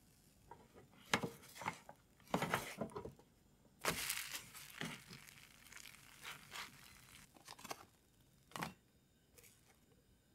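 Thin pancake being worked loose in a frying pan and slid onto a plate: a series of short scraping, peeling and knocking sounds against the pan, with a faint hiss underneath.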